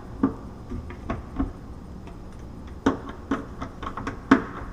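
Irregular light clicks and knocks of hand tools and metal hinge hardware as a short replacement screw is fitted into a European cabinet hinge that was missing its screw. The sharpest knock comes near the end.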